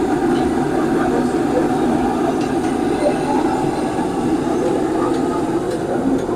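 Steady din of a busy kebab restaurant: a constant low rumble with indistinct voices and a few light clinks.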